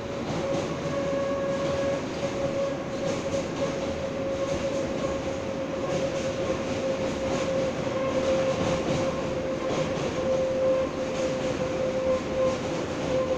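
R143 subway car running at a steady speed, heard from inside the car: a constant rumble of wheels on rail with a steady whine throughout and scattered light clicks from the track.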